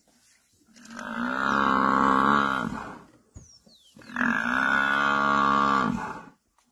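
Cape buffalo bellowing twice, two long drawn-out calls of about two seconds each with a slight drop in pitch as each ends: the distress bellow of a buffalo under attack by lions.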